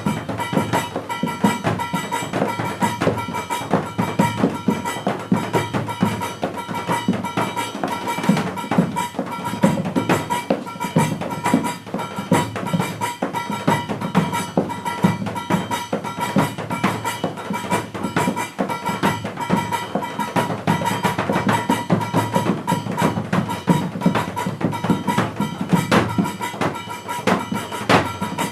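Instrumental music with drums and percussion: a dense run of quick strikes over a steady held tone.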